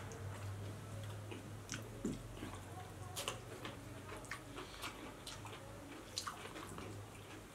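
Close-miked eating: wet chewing and lip-smacking clicks, fingers working biryani rice on steel plates, and a crisp bite into a cucumber slice, over a low steady hum.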